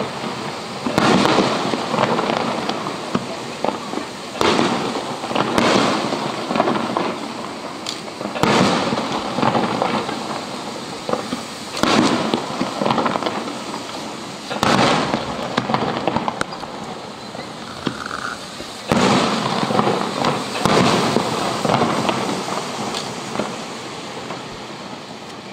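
Firework shells bursting one after another: about eight loud booms a few seconds apart, each trailing off in a long fading tail, with a longer gap before the last two.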